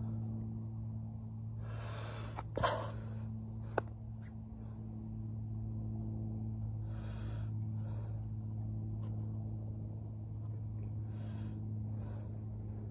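A person taking slow, deep breaths, a few seconds apart, over a steady low hum, with one sharp click a little under four seconds in.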